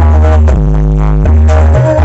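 Electronic dance music played very loudly through a huge stacked DJ sound system, dominated by a deep bass line that changes note about every three-quarters of a second.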